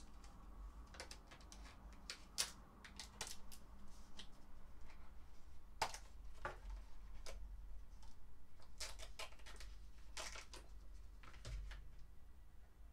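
Scattered light clicks, taps and rustles of a folding smartphone being slid out of its black cover and handled, with two sharper clicks about two and a half and six seconds in.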